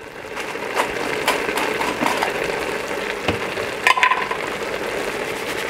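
A pot of collard greens simmering on a stove burner: a steady bubbling, sizzling hiss with a few light clicks and taps scattered through it.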